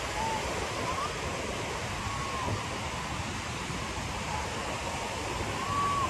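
Steady wash of sea surf breaking on a sandy beach, with wind rumbling on the microphone and a few faint distant voices.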